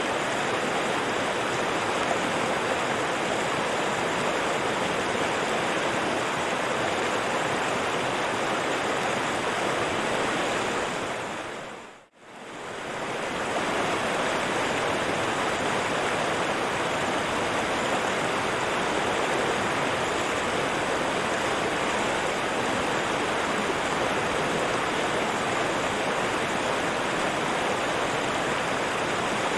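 River water running in a steady, even rush. About twelve seconds in, the sound fades quickly down to near silence and straight back up.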